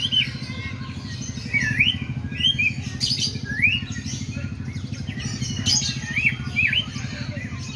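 White-rumped shama (murai batu) singing bulbul-like phrases that mimic the sooty-headed bulbul (kutilang): short whistled notes that dip then rise, about one every second, over a steady low hum.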